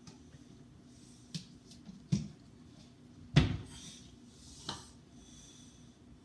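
Four separate knocks and clunks of household objects being handled, the loudest a little past halfway.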